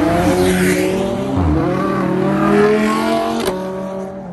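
Car engine accelerating hard, its pitch climbing as it revs, with one sharp pop about three and a half seconds in, then fading as the car pulls away.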